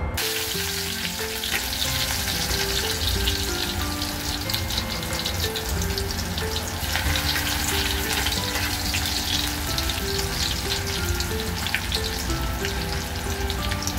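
Hot oil sizzling and crackling in an aluminium wok as minced garlic fries in it, the sizzle growing a little livelier about seven seconds in. Background music plays underneath.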